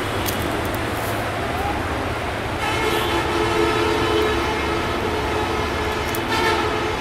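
Train horn of an approaching Bangladesh Railway diesel locomotive sounding one long, steady blast of about four seconds, starting a few seconds in, over a steady low rumble.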